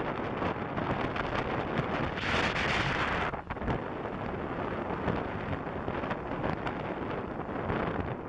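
Wind rushing over the microphone of a camera riding on a moving bike, with a louder gust about two seconds in that lasts about a second.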